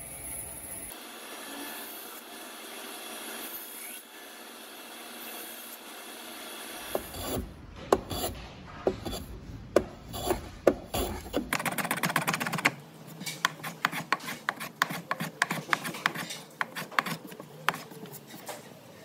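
Veritas skew block plane shaving laminated walnut-and-maple veneer splines flush with the sides of a curly maple box. There is a steady scraping at first, then a run of quick short strokes, several a second, through the second half.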